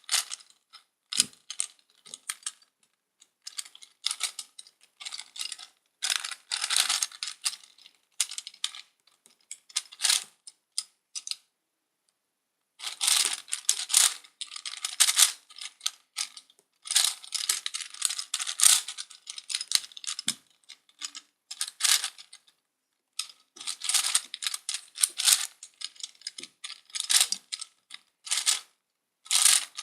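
Gear Ball twisty puzzle being turned fast by hand, its plastic gears clicking and rattling in quick bursts with brief pauses between turns.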